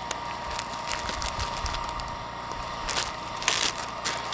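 Plastic zip-top bag crinkling and rustling as it is handled, in a few short bursts, the loudest about three seconds in, over the steady hiss of a Jetboil gas stove burner.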